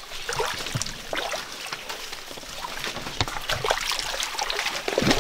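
Shallow forest stream trickling, with rustling, snapping and scuffing in the undergrowth as people clamber over a fallen log beside the water.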